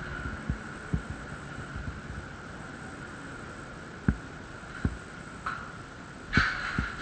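Scattered dull thumps and knocks, about five of them, over a faint steady high whine, with a brief louder rushing noise near the end.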